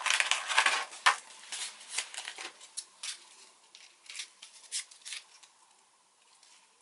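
Sheet of P400 sandpaper being handled and folded: dense paper rustling and crinkling in the first second or so, then scattered short rustles and taps that thin out near the end.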